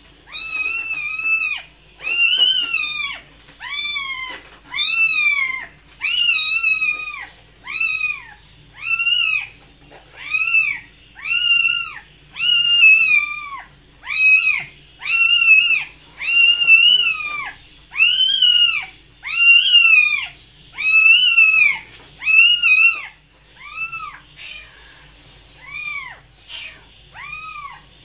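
A cat meowing over and over, about one meow a second, each call rising and then falling in pitch. Near the end the meows become shorter and fainter.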